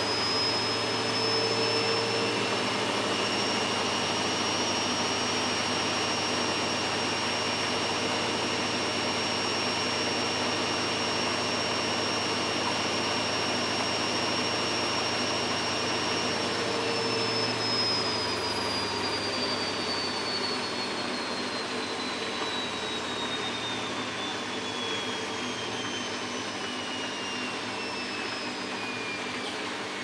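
Samsung WF8804RPA washing machine in its final spin at 800 rpm, the load balanced: a steady high motor whine over the noise of the spinning drum. About halfway through the whine starts to fall steadily as the drum spins down at the end of the spin.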